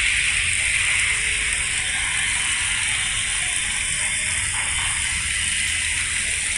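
Steady splashing hiss of a garden fountain, its water jet falling back into a pond.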